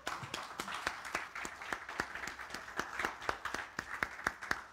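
Congregation applauding: many hands clapping together in a dense, steady patter.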